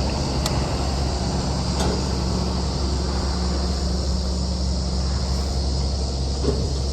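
Farm tractor engine running steadily, a low even hum, with a couple of faint light clicks.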